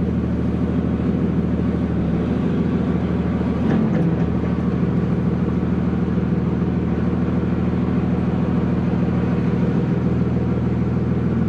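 Cummins 5.9 L inline-six turbo diesel in a 2001 Dodge Ram 2500 running steadily at low idle as the truck creeps in reverse, with a brief swell about four seconds in.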